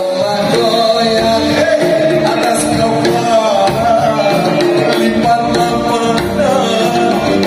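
A man singing into a handheld microphone with a live band, amplified through a PA system.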